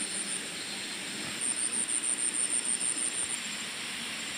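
Steady forest ambience: an even rushing background noise with a high, rapidly pulsing insect trill that comes and goes.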